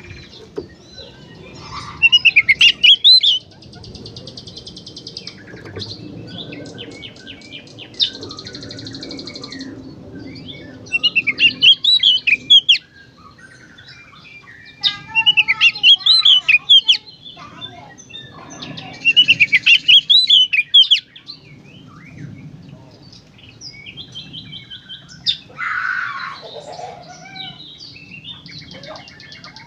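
Oriental magpie-robin (kacer) singing in loud bursts of rapid, warbling phrases every few seconds, with buzzy, rattling notes between them.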